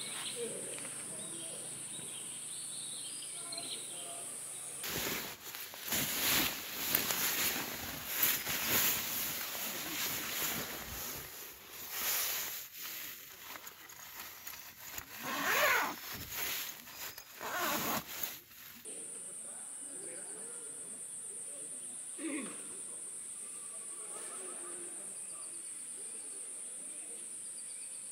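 Steady high-pitched insect drone; for about fourteen seconds in the middle it gives way to loud, irregular rustling of tent fabric and the rasp of a tent door zipper being worked by hand, then the insects return.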